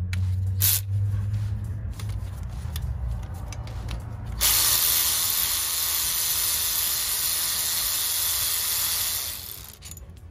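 Cordless electric ratchet running out a water-pump bolt: after a low hum and a few clicks as the tool is fitted, its motor runs steadily for about five seconds, then stops.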